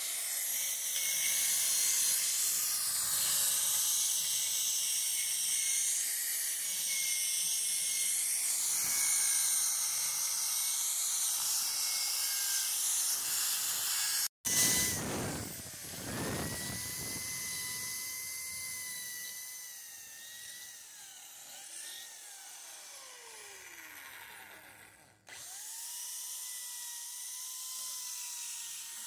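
High-speed handheld rotary grinder running inside the ports of a VW AP cylinder head, cleaning off carbon with a steady high-pitched whine. About halfway through there is a cut and a brief louder burst. Shortly before a second cut the whine slides down in pitch, then it rises again and runs steady.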